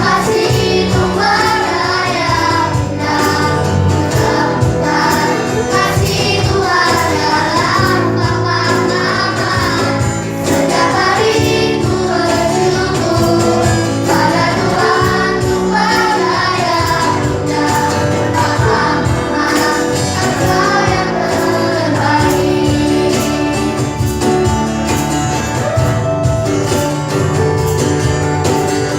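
A small group of young singers singing a song together over instrumental accompaniment.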